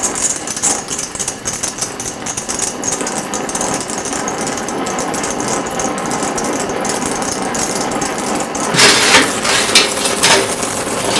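Welding torch flame running steadily with a dense crackle while post-heating a freshly welded bushing, so that the weld cools slowly. A few louder clattering bursts come near the end.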